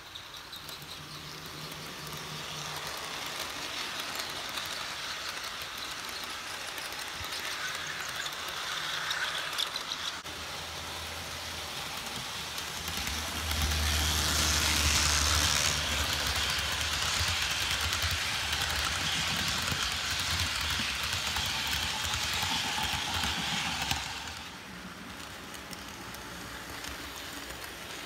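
Model trains running on a layout's track: a steady rolling rumble of wheels on rail with the hum of the locomotive motors. It swells to its loudest for about ten seconds from the middle as a train passes close, then drops suddenly.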